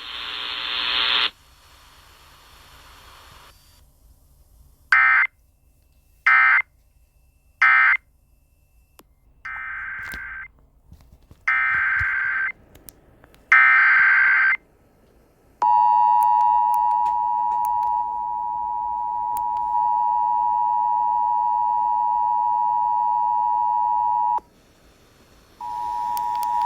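Emergency Alert System tones. Three short, shrill data bursts (the end-of-message code) come a few seconds in, then three longer data bursts (the header of the next alert), then the steady two-tone attention signal for about nine seconds. The attention signal breaks off, then starts again near the end.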